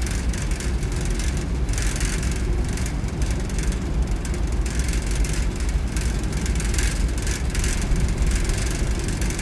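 Loose metal on a Washington State ferry rattling continuously, a dense clattering texture that swells and eases every second or so over the vessel's steady low rumble.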